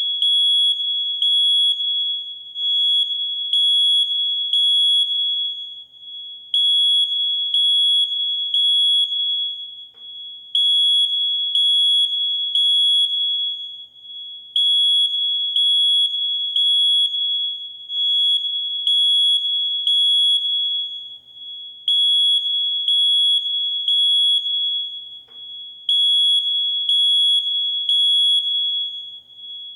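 Smoke alarm sounding a loud, high-pitched beep in repeated groups of three, each group followed by a pause of about a second and a half. This three-beep pattern is the full alarm a smoke detector gives when it senses smoke, not a low-battery chirp.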